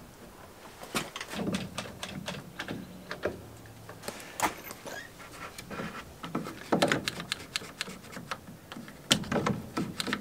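Clicks and knocks from a one-handed bar clamp being worked and wooden boards being shifted against a timber frame, coming in small clusters at irregular intervals.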